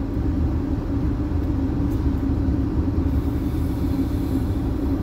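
Car engine running, heard from inside the cabin: a steady low rumble with a steady hum over it.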